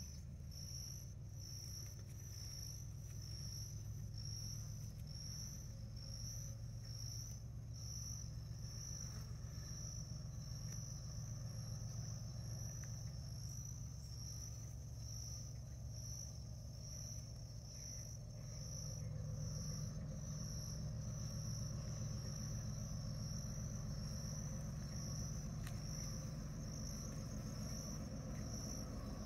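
An insect chirps in a steady, even rhythm of high pulses, over a low, steady engine hum, likely the distant diesel locomotives of the freight train, which grows louder about two-thirds of the way through.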